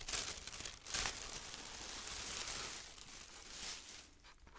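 Close-up crinkling and rustling of plastic packaging being handled, with sharper crackles about a second in, easing off near the end.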